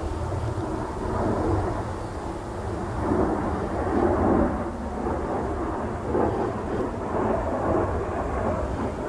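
Wind buffeting the microphone: an uneven rumbling noise that swells and fades in gusts.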